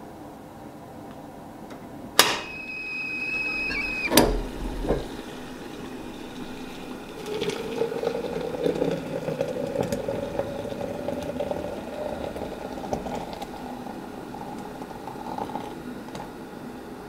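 Stovetop kettle whistling with a steady high pitch for about two seconds, then cut off suddenly with a click as it comes off the boil. A few seconds later, hot water is poured from the kettle into a glass French press, and the pitch of the pour rises slightly as the press fills.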